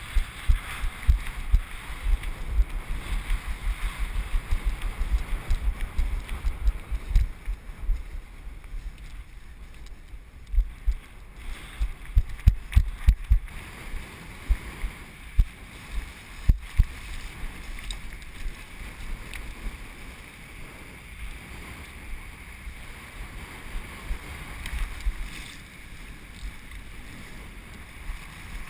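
Wind buffeting an action camera's microphone in irregular gusts, low thumping rumbles over a steady hiss; the gusts are heaviest in the first half and ease from about halfway.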